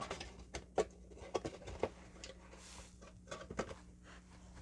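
Small plastic figure parts being handled: a scatter of light, irregular clicks and taps, with a brief soft rustle about halfway through.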